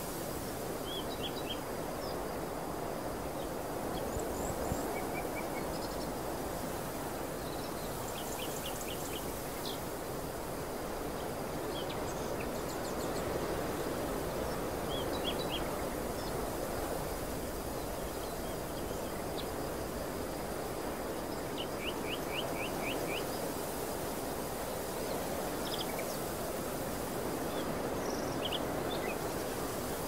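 Steady outdoor wind rush across an open field, with small birds giving short runs of quick, high chirps every few seconds.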